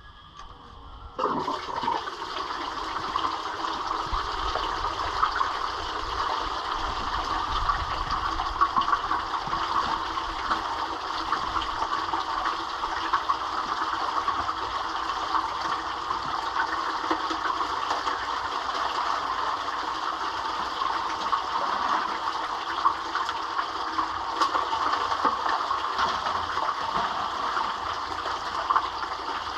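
Water starts running about a second in and then rushes steadily, the flow used to wash gold concentrates at a cleanup.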